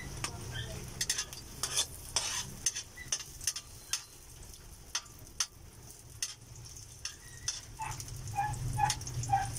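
Chopped garlic sizzling in hot oil in an aluminium wok, with a metal spatula scraping and clicking against the pan as it is stirred.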